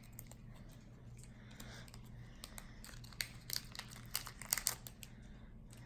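Pokémon card pack wrapper crinkling and tearing as it is opened, in a scatter of faint crackles that grow busier in the second half.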